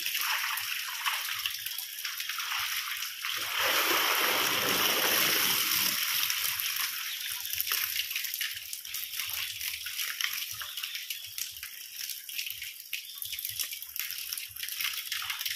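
Shallow pond water splashing and sloshing as crowded fish thrash and a plastic basket is scooped through them, with water trickling back out of the basket. A louder burst of splashing comes about four seconds in and lasts a couple of seconds.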